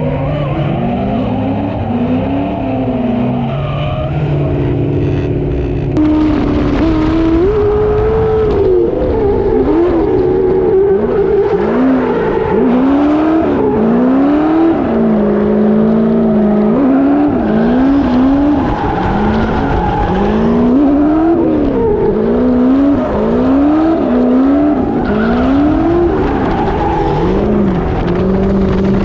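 Drift car engine revving hard and falling back over and over, about once a second, with tyres squealing and skidding as the car slides.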